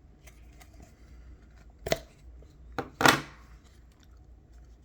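Cardboard knife box being handled: a short click about two seconds in, then a click and a louder brief scuff about a second later.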